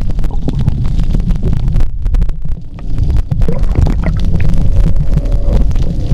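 Underwater water noise on a camera held by a swimming diver: a heavy, steady low rumble with many scattered clicks and knocks.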